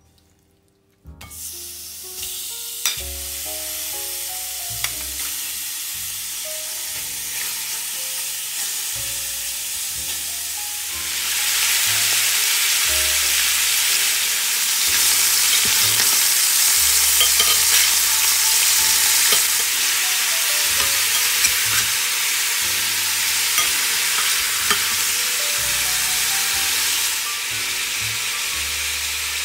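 Cubes of pork belly sizzling as they fry in a hot stainless steel pan. The sizzling starts about a second in and gets louder about eleven seconds in, with a few sharp clicks along the way.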